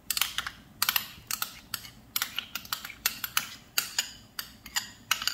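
Metal spoon scraping ketchup out of a textured glass bowl, clicking sharply against the glass in a quick, irregular run of taps.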